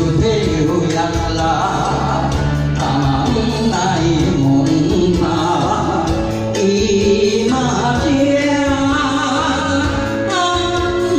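A man singing a Japanese-language song through a microphone over backing music, holding long notes that glide and waver.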